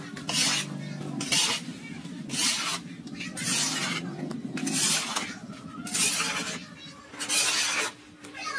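Rhythmic raspy scraping strokes, about one a second, each lasting roughly half a second.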